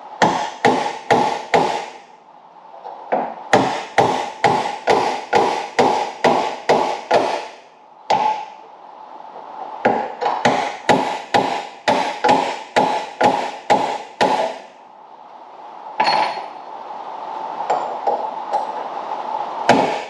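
Hammer striking a steel drift in quick runs of about three blows a second, each blow ringing metallically, with short pauses between runs and lighter blows near the end: driving out a seized, heated door hinge pin that has just started to move.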